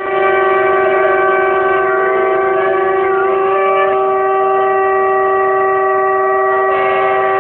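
Shofar blasts: long, loud, sustained horn notes. One steady note holds throughout while a second horn's pitch wavers and dips a few times.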